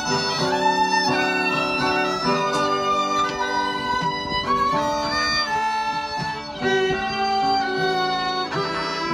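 Two fiddles playing a slow tune together, bowing long held notes in harmony.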